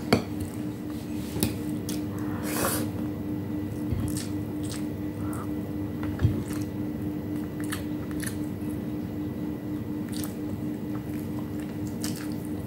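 Close-up eating sounds: chewing and wet mouth noises, with scattered short clicks and squishes as bare fingers work rice and soft boiled vegetables. A steady low hum runs underneath.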